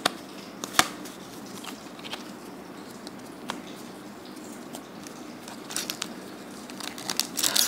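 Light scattered clicks and taps of trading cards being handled and set down. Then, near the end, the crinkling of a foil booster-pack wrapper handled in the hands, growing louder.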